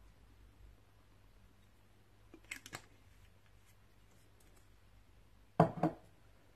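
A sweet soy sauce bottle being handled: a few light clicks about two and a half seconds in, then two quick, louder knocks near the end as it is set down on the worktop.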